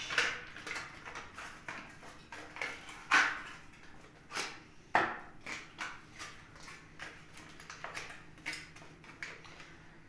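Aluminium kitchen foil crinkling and rustling as it is pulled off the roll and folded by hand, with a run of sharp crackles, the loudest about three and five seconds in.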